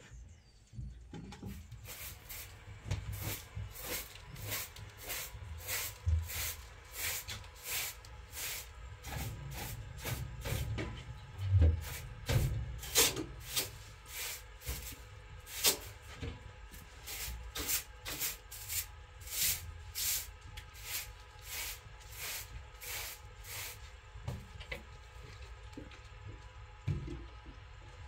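Straw hand broom sweeping a floor: a steady run of swishing strokes, about two a second, that stops near the end.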